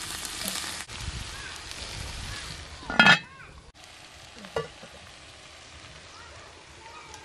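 Chopped leafy greens sizzling in a hot cast-iron three-legged pot over a wood fire. About three seconds in there is a loud, short ringing metal clang, and a lighter clink about a second and a half later, as the cookware is handled.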